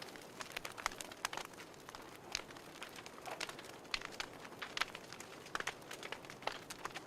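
Wood fire crackling in a fireplace: irregular pops and snaps, several a second, over a soft steady hiss.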